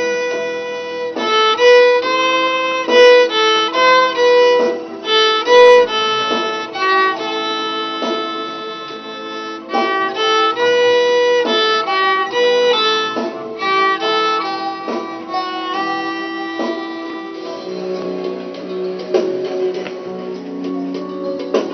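Violin playing a melody of short, quick notes over a steady lower note; near the end the music changes to lower, longer notes.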